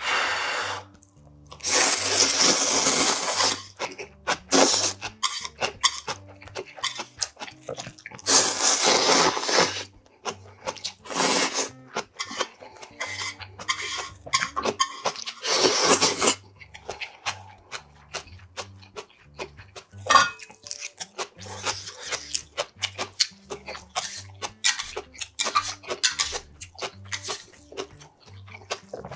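Person eating ramen noodles: several loud slurps, each lasting a second or so, in the first half, then chewing and many short clicks of chopsticks and mouth sounds.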